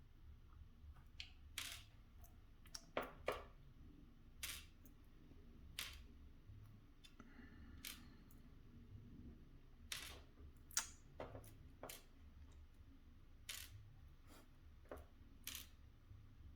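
Scattered sharp clicks and light metallic taps of small lock parts being handled and set down, the loudest around three seconds and eleven seconds in.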